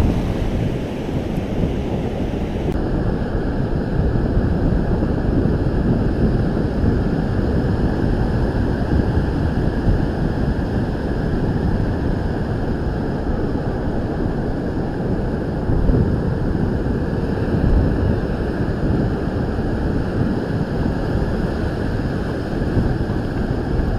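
Ocean surf breaking and washing up a sandy beach, a steady rush of noise, with wind buffeting the microphone. The higher hiss thins out about three seconds in.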